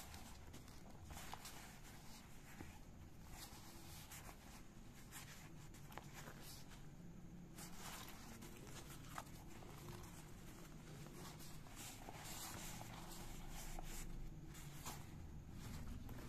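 Faint rustling and scratching of a fabric waist bag being handled, with a few light clicks from its pulls and buckles, over a low steady hum.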